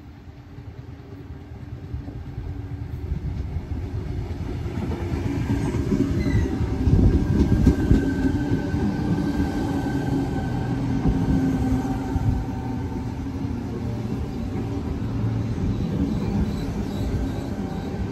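Sydney Trains Tangara electric train pulling into the station, its wheel and track rumble growing louder over the first several seconds and peaking as the cars come alongside the platform. Steady whining tones ride over the rumble as it rolls slowly along the platform to a stop.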